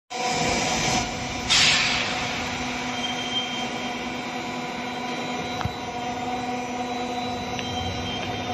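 CNC milling and centering machine running: a steady machine hum with several steady tones, a brief loud hiss about one and a half seconds in, and a single sharp click a little past halfway.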